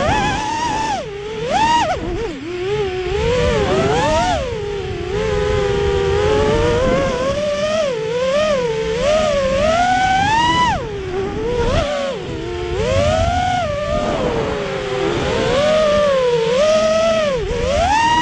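Racing quadcopter's four Emax 2205 2600kv brushless motors spinning three-blade propellers: a buzzing whine that rises and falls in pitch constantly with the throttle, dipping sharply a few times. Low wind rush on the onboard camera's microphone runs underneath.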